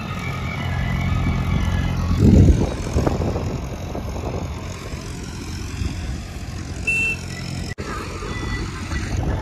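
Tractor diesel engine running steadily as it puddles a flooded paddy field with a rotavator, with a short loud thump about two seconds in. After that a rougher low rumble carries on without the engine's steady note.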